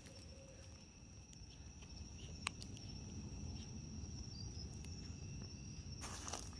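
Night insects trilling in a steady, high-pitched drone, with a single sharp click about two and a half seconds in and some rustling near the end.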